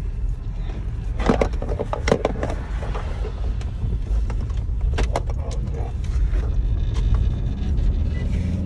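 Steady low rumble of a car's engine and road noise heard from inside the cabin, with a few short clicks and knocks about a second in and again about five seconds in.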